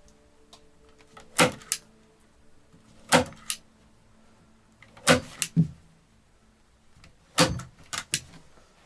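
Four heavy strikes about two seconds apart, each followed quickly by one or two lighter knocks.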